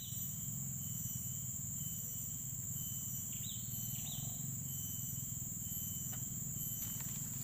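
Insects droning in a steady high tone, over a steady low rumble, with two short chirps a little after the middle.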